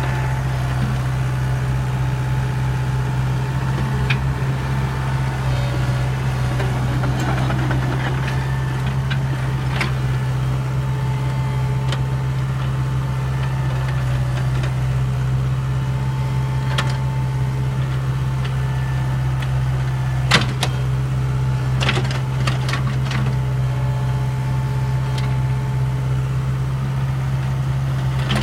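Komatsu PC70 excavator's diesel engine running at a steady speed while digging fence post holes, with scattered sharp knocks and clanks, the loudest about two-thirds of the way through.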